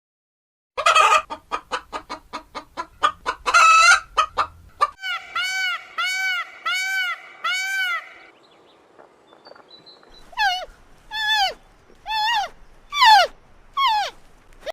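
Chickens clucking and calling: a quick run of clucks that speeds up, then a string of repeated arched calls about two a second, and after a short lull five falling calls.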